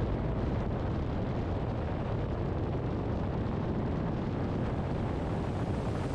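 Steady wind rush on the microphone of a camera mounted on a moving motorcycle, mixed with road noise.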